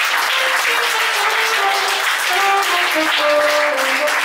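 Audience applauding loudly, a dense spread of clapping. A simple tune of single held notes steps up and down over the applause.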